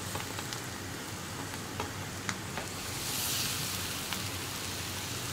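Onions and spice masala frying in coconut oil in a pan on high flame, sizzling steadily with a few small clicks; the sizzle swells louder about three seconds in.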